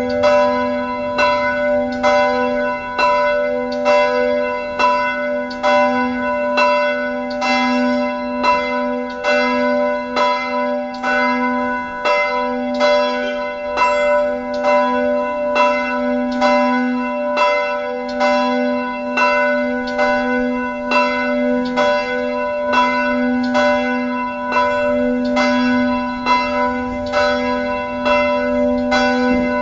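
Several church bells ringing continuously, struck about twice a second, their overlapping tones hanging on between strokes.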